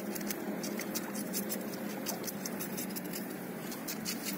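Crucian carp frying in mustard oil, the oil crackling and spitting in a steady stream of small sharp pops.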